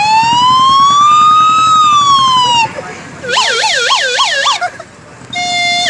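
Ambulance siren sound of India's 108 service: one long wail rising and then falling, then after a short gap a fast warbling yelp, and near the end a two-tone hi-lo pattern.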